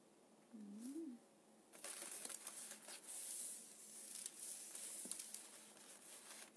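A woman's short closed-mouth hum, one note that rises and falls, followed by several seconds of soft, uneven rustling from her movements over the paper as she settles to write with a calligraphy brush.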